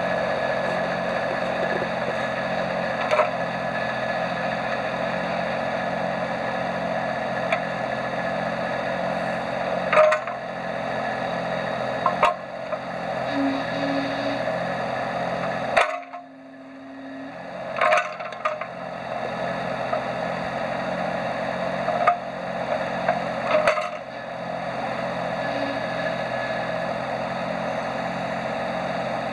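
John Deere 17ZTS mini excavator's diesel engine running steadily under hydraulic load as the boom and bucket are worked, with several sharp clunks along the way. The sound drops away briefly about halfway through.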